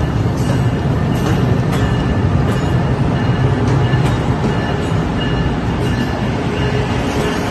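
NJ Transit train of multilevel coaches and its electric locomotive rolling past at low speed: a steady heavy rumble with irregular clicks of the wheels over rail joints. It swells to its loudest about four seconds in as the locomotive goes by.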